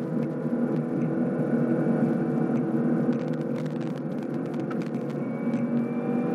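2016 Cadillac CTS-V's supercharged 6.2-litre V8 at full throttle in fourth gear, heard from inside the cabin, its note rising steadily as the revs climb. Scattered rattling clicks from a loose camera mount run over it.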